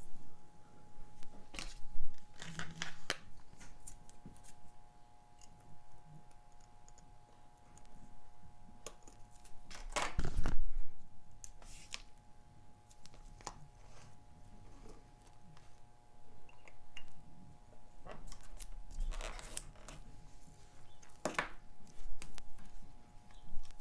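Scattered small clicks, taps and scrapes of watchmaking tools and parts being handled at a bench as a Seiko 6105 diver's watch movement is fitted into its case, the loudest a longer rustling knock about ten seconds in. A faint steady hum runs underneath.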